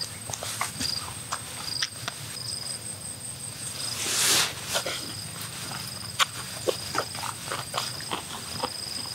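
Insects trilling steadily in the background, with scattered light clicks and knocks and a short rustling hiss about four seconds in.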